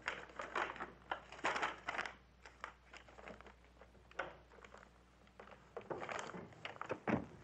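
Soft, scattered knocks and rustles in a small room as someone comes in: a door opening and footsteps.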